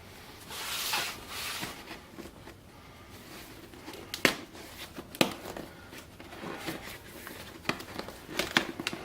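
Cardboard box being opened by hand. There is a scraping, tearing rustle in the first two seconds, then scattered crinkles and taps of cardboard and paper.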